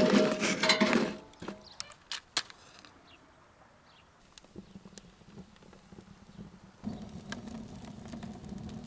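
Firewood logs dropped into a steel outdoor stove, clattering and knocking against the metal body with a ringing tone, then a few single knocks. After a quiet pause with small ticks, a low steady sound of the fire burning sets in near the end.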